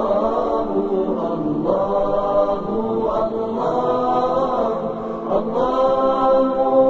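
Wordless sung 'aah' vocals (aahat) of the kind used as backing in montages. The voices hold long notes and slide slowly from one pitch to another without a break.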